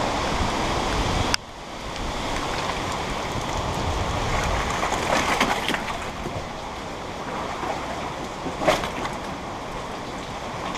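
Steady rain with wind noise that cuts off abruptly about a second in. A quieter steady hush follows, broken by a few knocks on wooden boards, the sharpest about eight and a half seconds in.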